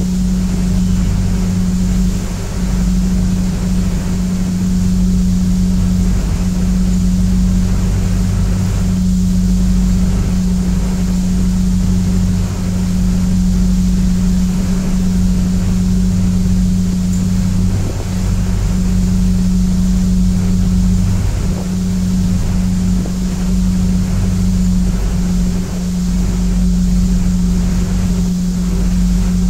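A passenger ferry's engines running with a steady low hum, with the wash of water and wind over it.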